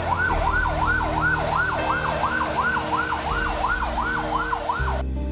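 Fire truck siren in a fast yelp, its pitch sweeping up and down about three times a second. It cuts off suddenly near the end.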